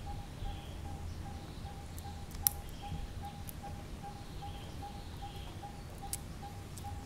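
Outdoor ambience: a steady, rapidly repeating pulsed note, about four to five pulses a second, with faint high calls over a low rumble. A sharp click comes about two and a half seconds in, and a softer one near the end.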